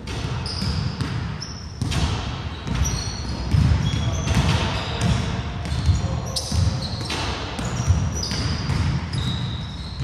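Basketball bouncing repeatedly on a hardwood court during play, with short, high sneaker squeaks between the thuds.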